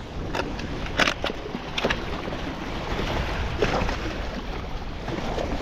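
Water sloshing with a steady noisy background, broken by a few sharp clicks or knocks, the clearest about a second in and just before two seconds in.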